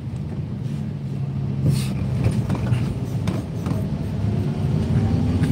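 Car driving, heard from inside the cabin: a steady low engine and road rumble with a few light clicks.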